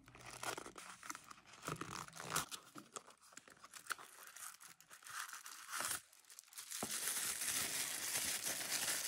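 A small cardboard gift box being handled and opened, with light scrapes and clicks of the flaps. Near the end, tissue paper crinkles steadily as the wrapping is pulled apart.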